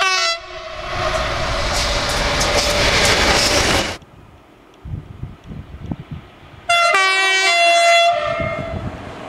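Railway train horns. One blast ends just as the clip begins, and a loud passing train follows until it cuts off suddenly about four seconds in. About seven seconds in a second horn blast sounds for about a second and a half, shifting in pitch partway, then fades into the train's running noise.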